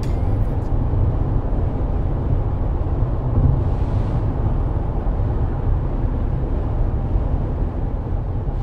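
Steady low rumble of a car driving on a highway, heard from inside the vehicle, with a brief hiss about four seconds in as a truck passes in the other lane.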